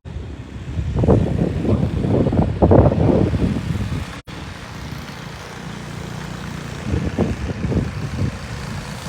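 Wind buffeting a phone's microphone in gusts, a low rumble that swells twice, with a brief dropout a little past four seconds.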